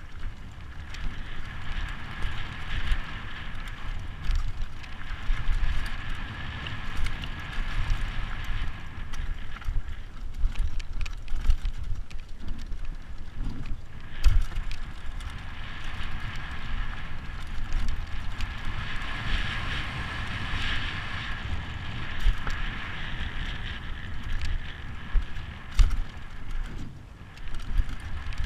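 Downhill mountain bike ridden fast over rough gravel and dirt: tyres crunching and the bike rattling, with wind buffeting the camera microphone and sharp knocks from bumps, the hardest about halfway through and again near the end. A high steady buzz swells in for several seconds twice.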